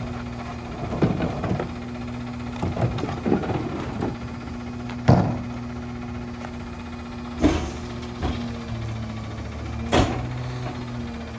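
McNeilus rear-loader garbage truck's diesel engine idling, with bangs and knocks as trash carts are tipped and emptied into the hopper; the loudest bangs fall about five, seven and a half, and ten seconds in.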